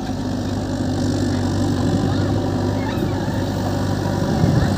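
Diesel engines of a farm tractor and a backhoe loader running at a steady idle, with a short low thump near the end.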